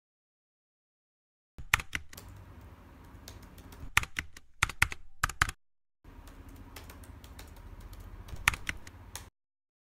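Typing on a laptop keyboard: quick runs of key clicks starting about a second and a half in, with a short break in the middle and a few louder taps among them.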